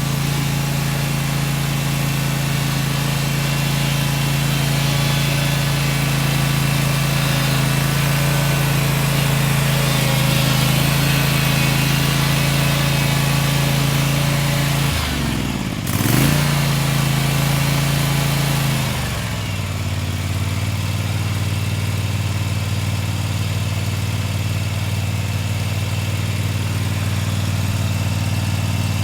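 Mini excavator engine running steadily. About halfway through its pitch dips and there is a sharp knock. A few seconds later it drops to a lower, steady speed.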